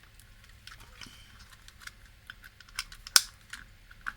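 Scattered light clicks and taps of small computer hardware being handled and fitted, with one sharper click about three seconds in.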